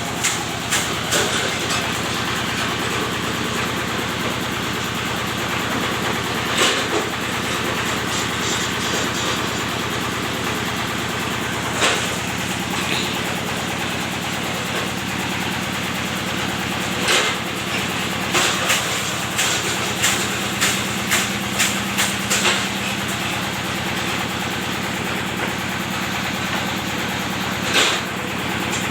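A bamboo-splitting machine's engine runs steadily, with sharp cracks now and then as bamboo is split: a few single cracks and a quick run of about seven in a row partway through.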